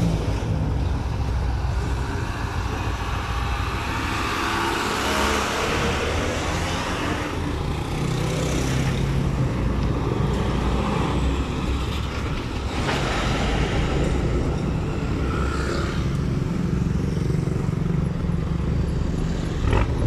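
Road traffic at a near standstill: engines idling close by, with a steady low engine hum and vehicles swelling past now and then.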